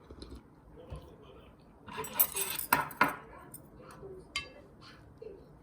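Dishes and cutlery clattering: a dense run of sharp clinks and knocks about two to three seconds in, then a single ringing clink.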